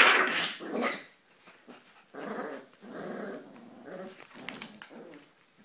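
Border collie and her month-old puppies growling in play, with a loud burst in the first second, then several short growls.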